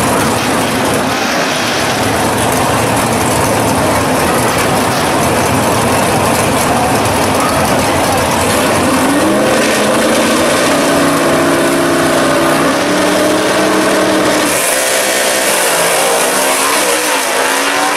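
Two drag-race cars, a first-generation Chevrolet Camaro and a Chevy II Nova, revving loudly while staged at the starting line, then launching about nine seconds in. The engine pitch climbs in steps, shifting through the gears as they accelerate down the strip.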